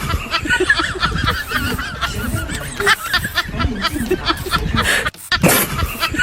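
A flock of birds calling all at once, many overlapping calls, with a brief break about five seconds in.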